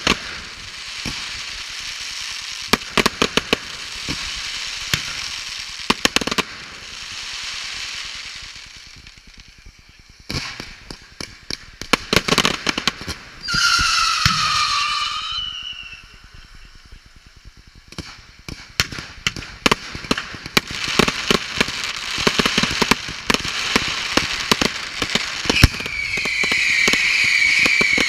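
Aerial fireworks display: rapid sharp bangs and dense crackling from bursting shells and ground-fired effects. About halfway through comes a falling whistle, and near the end a steady shrill whistling over the crackle.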